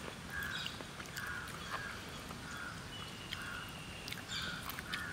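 A bird calling over and over outdoors, short calls about two a second, with a few faint clicks mixed in.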